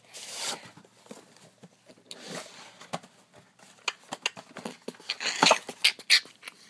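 Packaging being handled as a wand is taken out of its box: irregular clicks, scrapes and rustles, busiest a little before the end.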